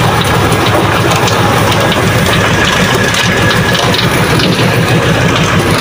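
Fishing boat's engine running steadily and loudly, with water rushing along the hull.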